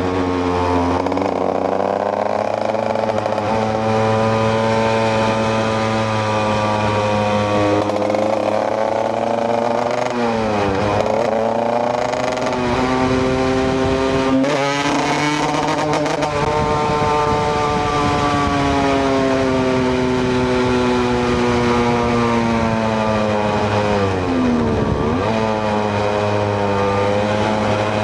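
KTM EXC 125 single-cylinder two-stroke motorcycle engine under way, its pitch rising and falling with throttle and gear changes. It drops sharply and climbs again about ten seconds in and again near twenty-five seconds, with a long slow climb and easing off in between.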